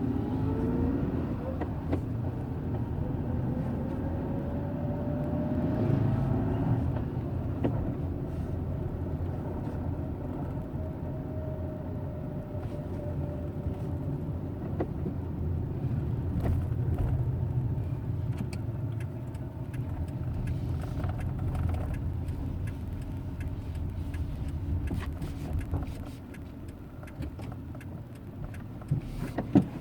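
Hyundai Eon running at low rpm: a steady low rumble with a faint whine that rises in pitch over the first several seconds and then holds steady. This is the low-rpm grinding the owner is trying to trace. A sharp click comes near the end.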